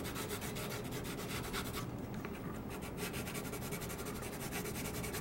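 Colored pencil scratching back and forth across black drawing paper in quick hatching strokes, shading in a flat area. The strokes stop for about a second partway through, then resume.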